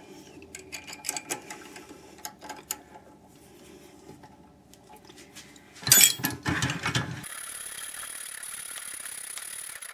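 Metal parts and tools being handled at a metal lathe: light clicks and knocks, then a loud metallic clatter about six seconds in. After that the lathe's treadmill-motor drive starts and runs at steady speed with a high, even whine.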